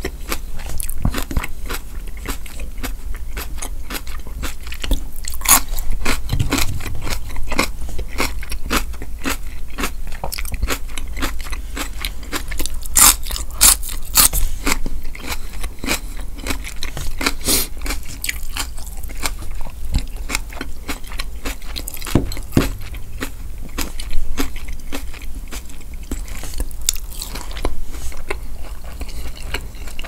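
Close-miked chewing of crunchy raw celery: a steady run of wet crunches and mouth sounds, with a few louder crunches.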